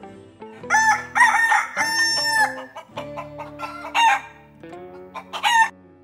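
A rooster crowing: one long cock-a-doodle-doo starting about a second in, followed by two shorter calls near the end, over soft background music.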